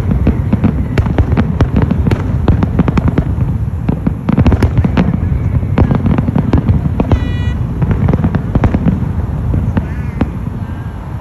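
Loud, rapid, irregular popping and crackling over a low rumble, with a short whistle-like tone about seven seconds in.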